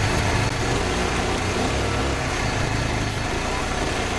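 AHP TIG welder running while tack-welding steel tubing: a steady buzzing hiss over a low hum.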